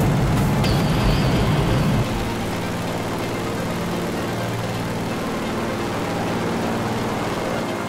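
Floatplane engine running, heard from inside the cabin. About two seconds in it drops to a lower, steadier drone.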